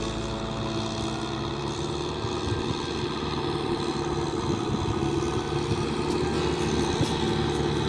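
Kubota M6040 SU tractor's four-cylinder diesel engine running steadily under load while tilling dry ground, growing slightly louder as the tractor comes closer.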